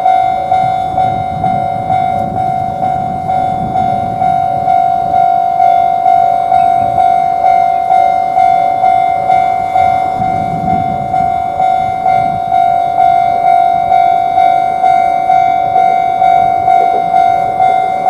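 Japanese railroad crossing warning bell ringing its steady "kan-kan", about two strikes a second, each strike fading before the next. A low train rumble rises underneath at times.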